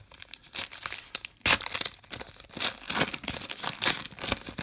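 Foil trading-card pack wrapper being torn open and crinkled in the hands, a quick run of sharp crackles with the loudest rip about one and a half seconds in.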